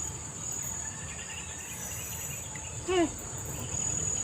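Steady high-pitched insect trilling, most likely cicadas or crickets, over a low even rush. One short pitched cry, voice-like, sounds about three seconds in.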